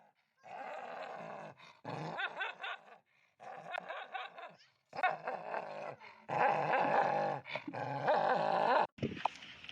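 A dog whining and growling in a series of about six drawn-out, wavering calls, each around a second long with short pauses between.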